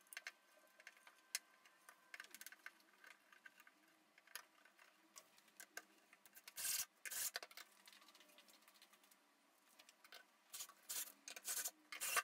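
Screws and a plywood frame being handled on a cabinet top: light clicks, taps and rubbing, with a louder scraping burst just past halfway and a run of short scrapes near the end.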